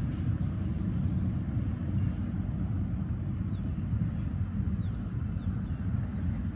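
Steady low outdoor rumble with no clear rhythm or pitch, with a few faint, short, high chirps in the second half.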